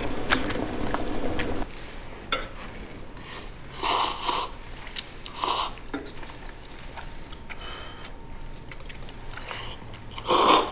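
Instant ramen simmering in a metal pot on a portable gas burner for about the first second and a half. Then comes eating from the pot: noodle slurps about four seconds in, another a second and a half later and a louder one near the end, with a few light clicks of utensils.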